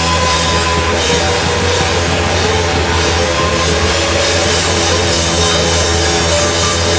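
Loud live rock music: a band playing with drums and guitars, dense and continuous with a heavy bass.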